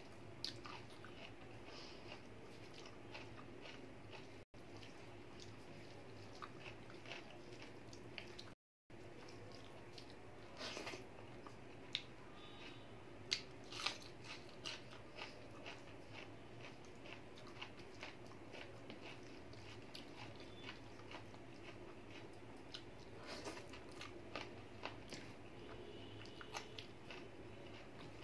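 Close-up eating sounds: chewing and lip smacking over a meal of rice, dal and potato-cauliflower curry eaten by hand, with soft wet squishes of fingers mixing food on the plate. Many short smacks and clicks over a faint steady hum; the sound cuts out completely twice, briefly.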